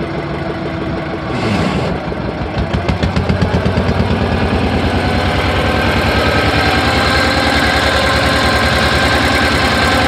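Small ferry boat's engine running with a rapid, even knocking beat, louder from about two seconds in.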